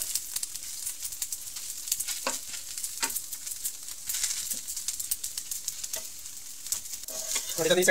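Rice-batter dosa sizzling on a hot griddle (tawa), with a metal spatula scraping and tapping on the pan as it presses and spreads a grated-carrot and onion topping in irregular strokes.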